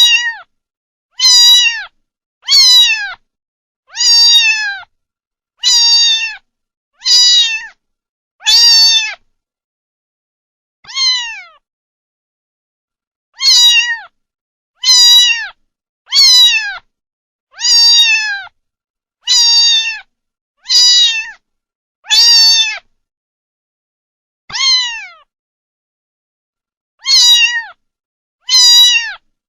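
Kitten meowing over and over, about eighteen short high-pitched meows that each fall in pitch. They come roughly one every second and a half, with a couple of longer pauses, in a looped sound-effect recording with silence between the calls.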